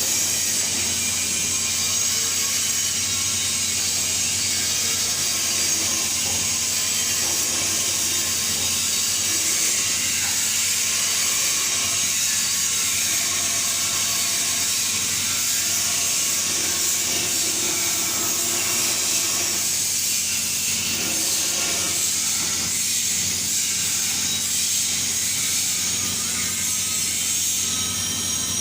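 TIG (GTAW) welding arc running steadily: a constant high hiss over a low mains-frequency buzz.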